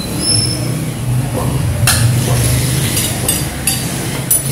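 Steel cutting blades clinking against each other and the block: a few sharp metallic clicks, the last ones close together near the end, over a steady low hum.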